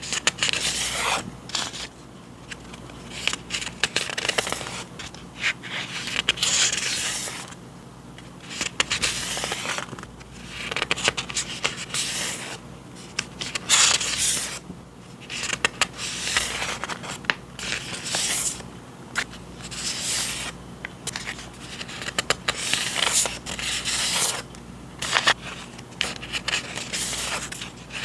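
Paper and packaging being handled and opened: irregular rustling, scraping and tearing strokes, some sharp and crackly, with short pauses between them.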